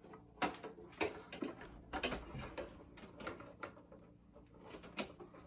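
Parts of a life-size animated Santa's stand being handled and fitted together: a series of scattered clicks and knocks, the sharpest about half a second in, around two seconds in, and near the end.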